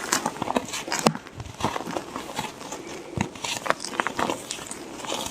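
Block of Plain Jane white gym chalk being crushed and crumbled by hand: a run of irregular crunches and crackles.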